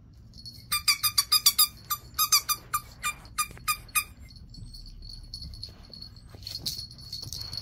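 A dog's squeaker ball being chewed, giving a rapid run of short, high squeaks that slows to single squeaks about four seconds in. A faint, steady high tone follows.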